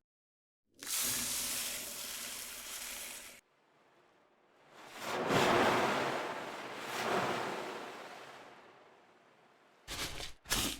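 Hand-made foley noises: a steady hiss that cuts off abruptly, then a longer whooshing rush that swells twice and slowly fades, with a few short sharp noises near the end.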